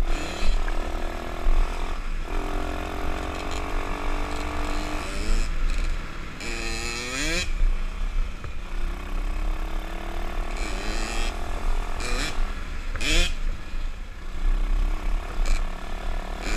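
A 125cc pit bike's single-cylinder four-stroke engine running under way, its revs climbing sharply twice as the throttle is opened, around the middle and about three quarters through. Steady wind rumble from riding buffets the helmet-mounted microphone.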